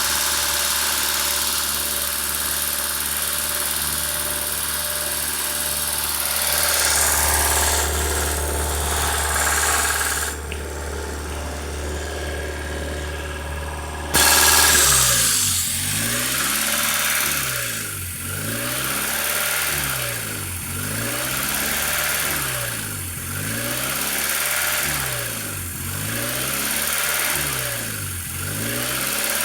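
Honda Civic D16 four-cylinder engine idling with a hiss, the classic sound of a vacuum leak in the swapped-on D16Y8 intake. Partway through, the hiss cuts out for a few seconds. Then the idle speed starts rising and falling in a slow, repeating cycle every few seconds.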